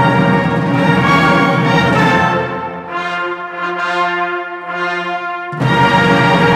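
Concert wind band playing a funeral march, with brass to the fore. The full band thins to a few held notes about three seconds in, then comes back in loudly near the end.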